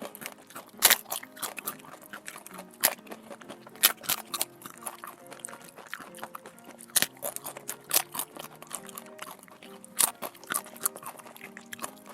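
Close-up crunching and chewing of crisp food, a run of sharp irregular crunches, over soft background music.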